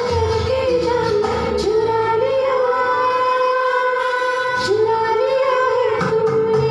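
A woman singing a song into a microphone over a PA, holding long notes, with instrumental backing beneath her voice.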